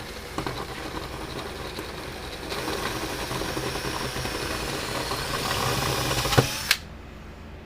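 Electric drill running against a steel rivet, drilling it out of a fence charger's transformer mount; the rivet is stubborn and resists the bit. The drilling gets louder about two and a half seconds in and stops abruptly near the end.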